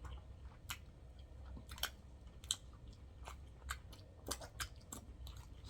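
Close-miked chewing of a sauce-dunked cheeseburger: irregular wet mouth smacks and clicks, a few each second.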